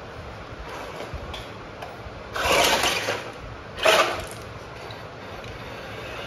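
Toy RC monster truck's electric motor whirring in two short bursts, about two and a half and four seconds in, as its tyres scrabble over a model SUV, with plastic interlocking blocks clattering as the ramp under it collapses.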